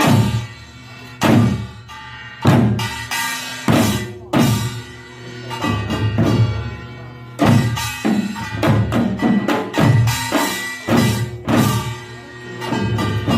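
Korean pungmul percussion ensemble playing: drums and ringing metal gongs struck together in loud, accented strokes. The strokes come in uneven groups and quicken after about 8 seconds.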